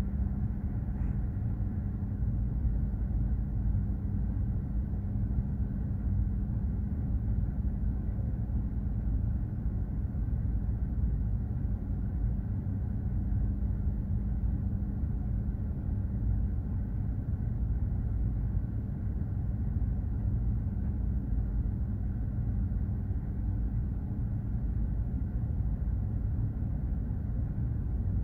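Steady low rumble and constant hum of a container ship under way at sea.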